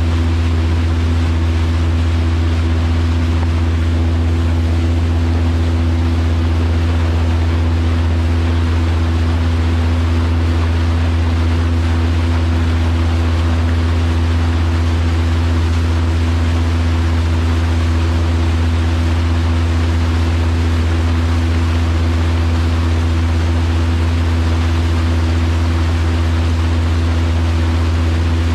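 Boat motor running steadily under way: a constant low hum with steady higher tones, and water and wind noise over it.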